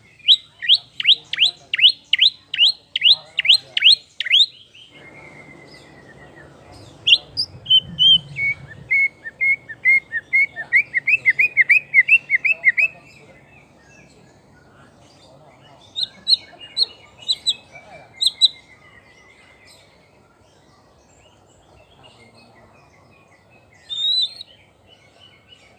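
White-rumped shama singing. It opens with a fast run of repeated whistles, each sliding downward. After a short pause it gives a quickening series of lower notes, then a few sharp high phrases and one brief call near the end.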